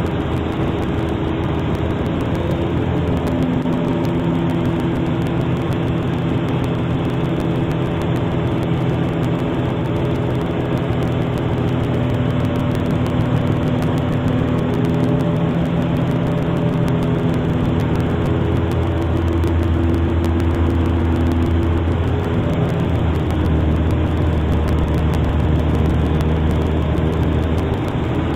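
Piper Super Cub's piston engine and propeller droning steadily in flight. The tones shift slightly a few seconds in, and a deeper hum grows stronger in the last third.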